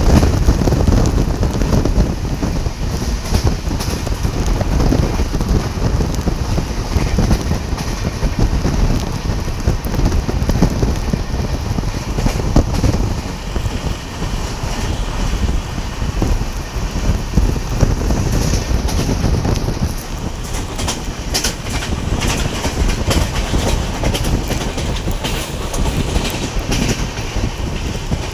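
Passenger train running along the track, heard from on board: a steady loud low rumble of wheels on rails. In the last third, sharp clicks over rail joints become more frequent.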